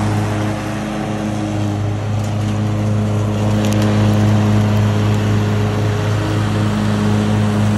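Troy-Bilt riding lawn mower engine running steadily while the blades cut grass and blow clippings out of the deck, giving an even, loud hum.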